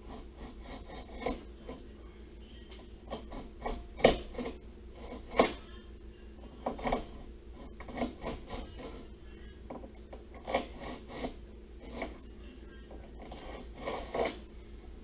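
Utility knife blade scoring a piece of drywall along a square, in about a dozen short scraping strokes at irregular intervals.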